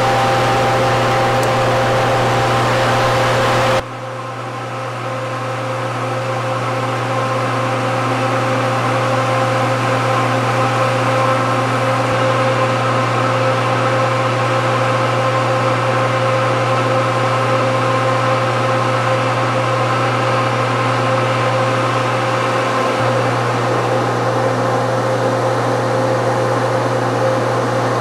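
Steady machinery drone: a deep hum with several steady whining tones over it. It cuts off abruptly about four seconds in and picks up again a little quieter, swelling back up over the next few seconds.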